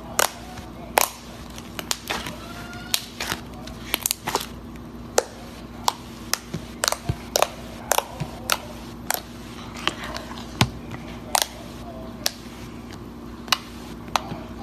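Slime being squeezed and handled, giving irregular sharp clicking pops, a few a second, over a steady low hum.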